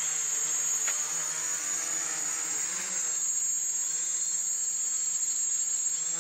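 Homemade AeroQuad quadcopter's electric motors and propellers buzzing steadily as it hovers low over the grass, the pitch wavering a little after a few seconds as it holds position.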